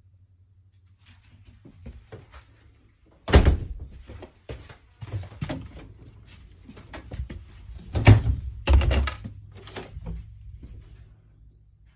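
A run of knocks, thuds and rattles of a toy hauler's doors being worked, with two heavy bangs about three and eight seconds in.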